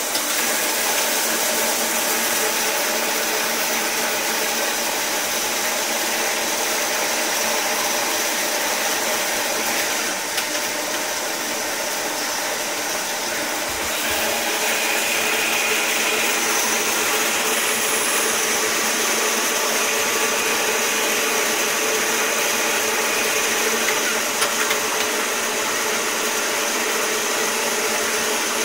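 CNC automatic lathe running steadily: a continuous mechanical whir and hiss from the spinning spindle and chuck, with cutting oil streaming over the work.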